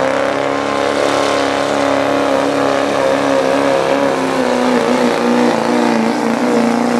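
Chevrolet Duramax V8 turbo-diesel pickup under full load, dragging a pulling sled. The engine is held at high revs, running at a nearly steady pitch that wavers a little midway.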